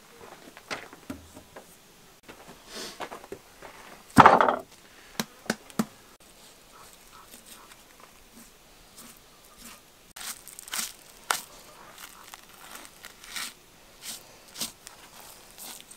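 A heavy thump about four seconds in, the loudest sound, as something is set down on a wooden table, followed by a few sharp knocks. From about ten seconds in, a series of short cutting and scraping strokes as a knife slices into a raw lamb joint on a wooden board.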